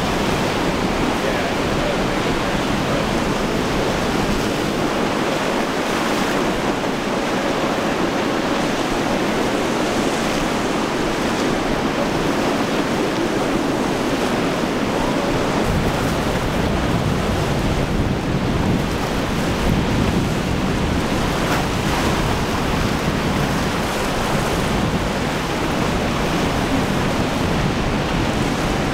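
Surf breaking and washing steadily in a rough inlet, with wind buffeting the microphone; the low wind rumble gets heavier about halfway through.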